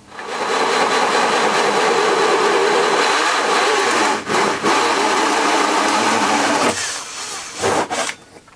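Cordless drill spinning a 2 1/8-inch hole saw as it cuts through a wall panel: a steady, loud whir with a brief break about four seconds in. Near the end it drops lower, then comes a few short bursts before it stops.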